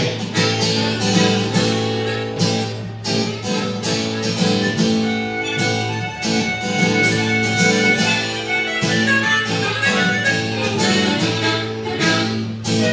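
Acoustic guitar strumming a steady rhythm while a harmonica plays a solo of held and bent notes over it.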